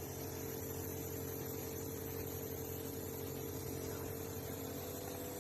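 Steady hum with an even background hiss, unchanging throughout.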